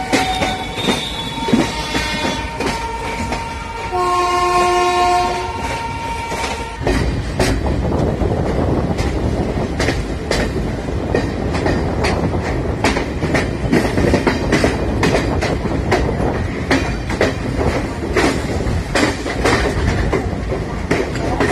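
A train horn sounds once, then from about seven seconds in a train rolls past with a heavy rumble and a steady clatter of wheels over rail joints.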